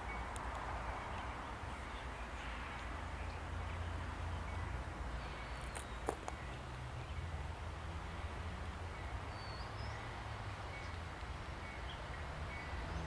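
Outdoor ambience: a steady low rumble with a few short bird chirps and faint clicks.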